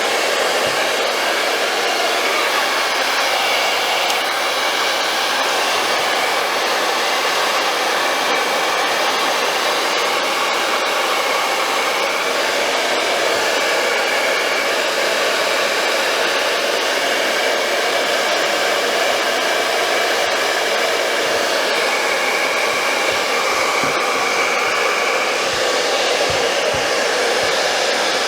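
Handheld blow dryer running steadily on its fan, blowing hot air to soften a clear sole protector so it can be molded onto a sneaker sole. A faint steady whine rides over the airflow.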